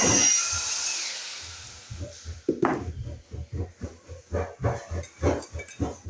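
Hand work on electrical wire: a string of short scrapes and clicks, a few a second, as wire strippers and fingers strip and twist copper heater wires, starting about two seconds in after a fading hiss.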